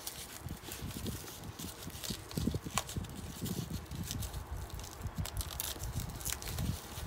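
Thin protective wrapping rustling and crinkling in irregular bursts as hands peel it off a new handbag's top handle, with soft knocks from the bag being handled.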